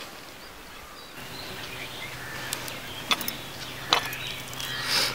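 A hand mixes cooked rice in a clay bowl: soft rustling and squishing with a few sharp clicks, the loudest near the end. A steady low hum runs underneath from about a second in. Before that, birds chirp faintly.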